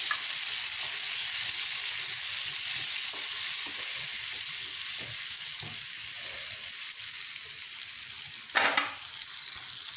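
Wild mangoes fried with onion, garlic and curry leaves sizzling in oil in a pan, just after a little water has been poured in and while it comes to the boil; a steady hiss that eases slightly, with a short louder sound near the end.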